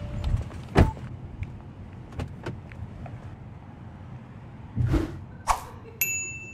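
Car door on an Audi saloon shut with one loud thud under a second in, then small clicks and two heavier thuds around the boot about five seconds in, followed by a steady high beep near the end.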